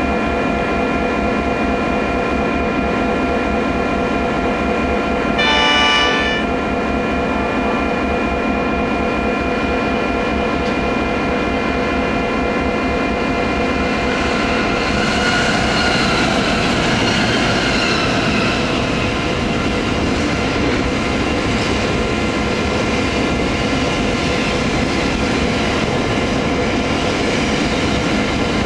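Pacific National GE NR class diesel locomotives running past in dynamic braking, with a steady whine of several tones. A short horn blast sounds about six seconds in, and the whine swells about halfway through.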